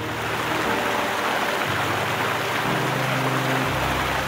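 Mountain creek water rushing over rocks and a small waterfall, a steady dense rush with no break. Low held tones sit underneath and shift to a new pitch every second or so.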